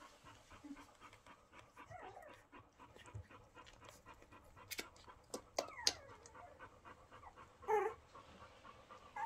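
Young golden retriever puppies making small squeaks and whines, with a few short calls that fall in pitch about five to six seconds in and a louder one near the end. The mother's soft panting and faint clicking run underneath.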